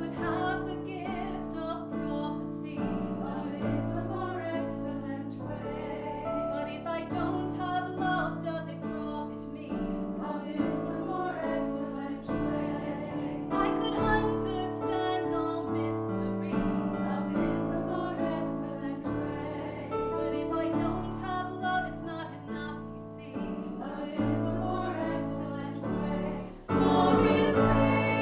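Singing with piano accompaniment, a church hymn or anthem. About 26 seconds in the music suddenly gets louder and fuller.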